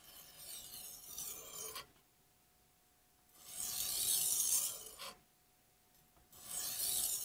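Chef's knife blade drawn across an oiled medium-grit sharpening stone in long tip-to-bolster strokes: three smooth, even scraping hisses of about a second and a half each, the first fainter, the blade moving across the stone cleanly.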